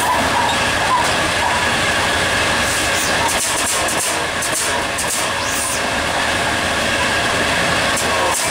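EMD GT36HCW diesel locomotive running at speed, heard from inside the cab: a steady mix of engine and wheel-on-rail noise with a faint steady whine, and a few sharp clicks from about three to six seconds in.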